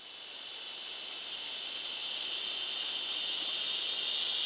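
Chorus of insects at dusk: a steady, high-pitched drone that swells steadily louder.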